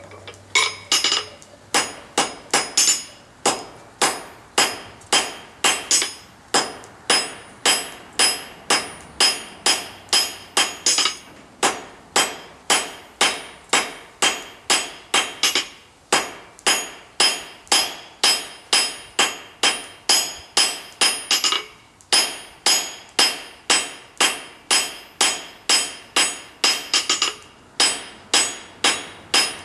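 Hand hammer striking red-hot coil-spring steel on an anvil, drawing it out into a square awl taper. About two blows a second, each with a bright ring, broken by a few brief pauses.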